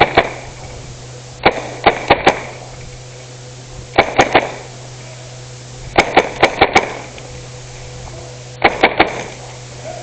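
Airsoft gun firing short bursts of three to five sharp cracks, one burst about every two seconds, loud and close.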